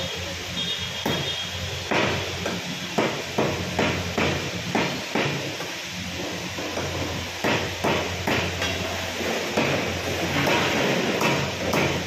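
Heavy meat cleaver chopping chicken on a wooden log chopping block: a string of sharp chops, about two to three a second, with a short pause midway.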